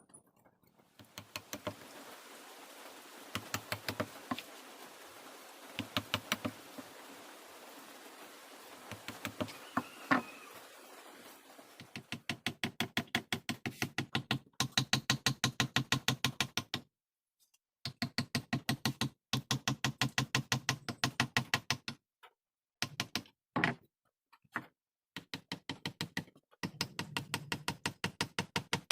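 Mallet tapping a carving chisel into hardwood in quick runs of light strikes, several a second, with short pauses between the runs.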